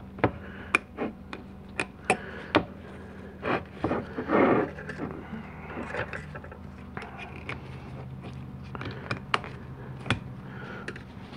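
Steel snap ring being worked into its groove on a 700R4 transmission's one-way roller clutch assembly: a series of irregular sharp metal clicks and ticks, with one longer scrape about four and a half seconds in, over a faint steady hum.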